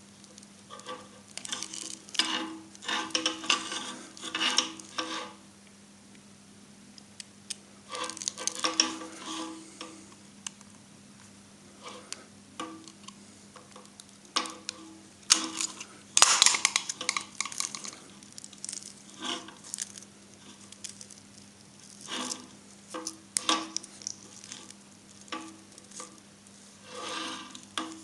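Irregular bursts of scraping and metallic rustling from hand work on the cut end of a burnt welding earth cable, its copper strands and insulation handled and worked, over a steady low hum.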